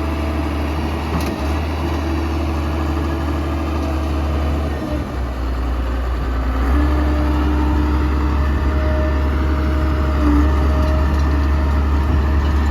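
Komatsu D41P-6 bulldozer's diesel engine running steadily, with a brand-new motor in it. About seven seconds in, its pitch steps up and it gets louder.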